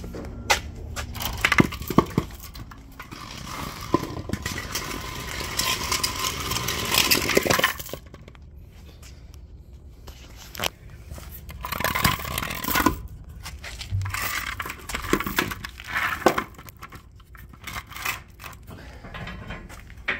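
Wooden wheel chocks on steel chains being handled: a series of chain clinks and wood knocks, with a few seconds of scraping as a chock is dragged over concrete and set against the trailer tire.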